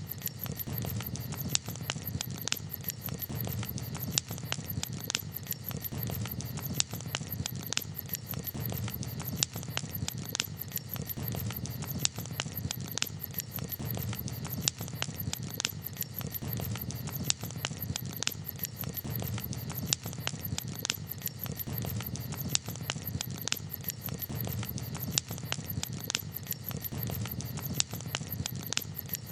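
Wood campfire crackling: irregular sharp pops and snaps, several a second, over a steady low rumble of the burning fire.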